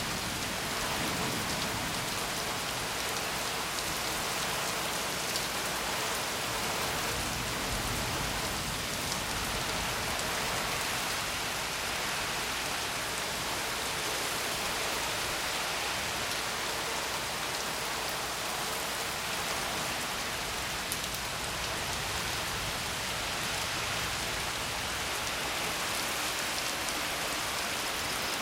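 Rain falling steadily during a thunderstorm, an even hiss that does not let up.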